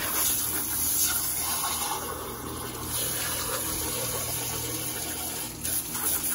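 Water spraying from a garden hose's pistol-grip nozzle onto a whole plucked chicken carcass, rinsing it down after evisceration; a steady hiss of spray with a brief break near the end.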